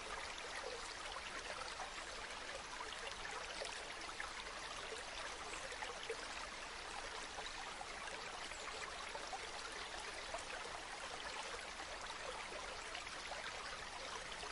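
Mountain waterfall: a steady, even rush of falling water, bright and hissy, with small splashes flickering through it and no change over the whole stretch.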